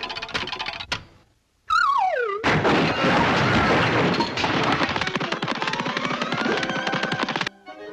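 Cartoon sound effects: a whistle-like tone glides steeply downward, then a long, dense burst of rapid clattering like machine-gun fire runs for about five seconds over a slowly rising tone. The burst cuts off suddenly near the end.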